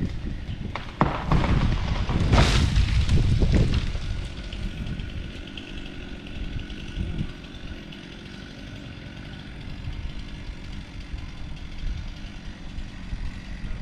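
Heavy crashing thuds for about three seconds, starting about a second in, then an engine idling steadily.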